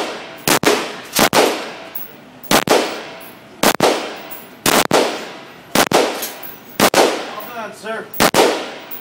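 Handgun fired in single shots, about eight of them roughly a second apart at an uneven pace, each with a ringing echo off the walls of an indoor shooting range.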